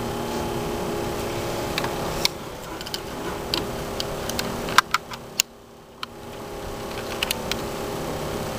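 Scattered clicks and light knocks from a small largemouth bass being handled and hung on a handheld digital fish scale, over a steady hum with several pitches. The hum drops away for about a second after five seconds in, then builds back up gradually.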